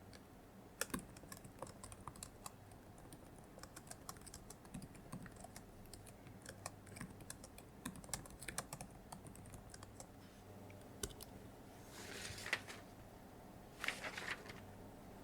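Quiet typing on a computer keyboard: quick, irregular key clicks, with two louder, longer noisy sounds near the end.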